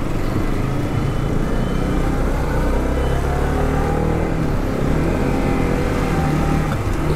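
Motorcycle engine running on the road, its pitch rising and falling as the speed changes, over steady road noise.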